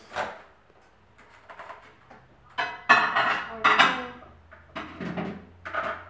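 An over-the-range microwave's door clicking open, then a dish clattering and scraping as it is set inside, loudest about three seconds in, with a few shorter knocks near the end.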